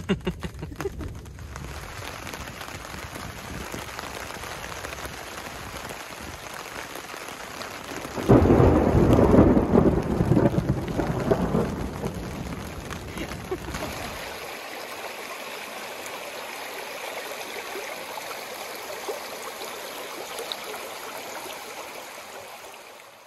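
Thunderstorm: steady rain, with a loud crack of thunder about eight seconds in that rumbles on for several seconds before dying away. After that a lighter, thinner hiss carries on.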